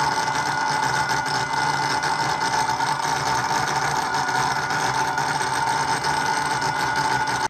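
Castle Creations 2028 1100kv brushless motor spinning the RC truck's drivetrain on the bench with no tires, a steady whine with gear and driveline noise at constant speed, cutting off suddenly at the end. The motor is running away without a proper throttle signal, a fault the owner lays to the receiver.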